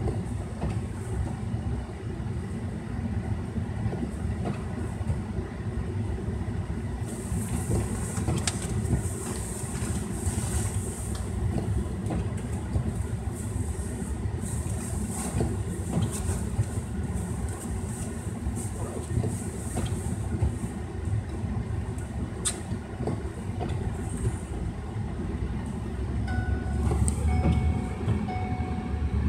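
Steady low rumble of a car's cabin as it idles in stop-and-go traffic, with a faint hiss that comes and goes and scattered light ticks.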